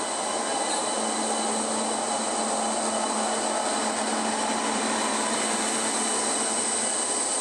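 WAG-9 three-phase electric locomotive passing at low speed: a steady rushing hum with a constant high whine over it and no wheel clatter.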